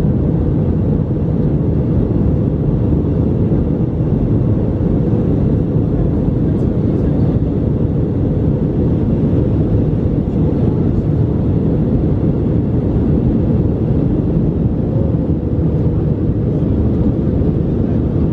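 Airbus A321 cabin noise in flight: a steady, deep roar of the jet engines and the rushing air, heard inside the cabin by a window seat.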